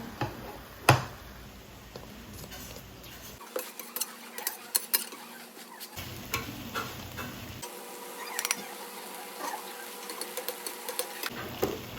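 Kitchen clatter: utensils and dishes clinking and knocking in scattered clicks, one sharp knock about a second in and quick clusters of clinks later on.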